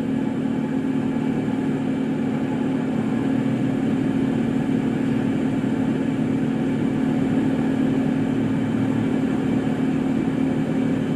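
Steady low machine hum over an even rush of noise.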